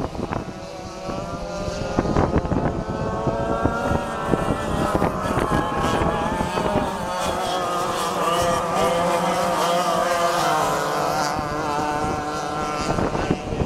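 Several 100cc racing kart engines running hard as the karts circle the dirt oval, their overlapping pitches rising and falling as they pass.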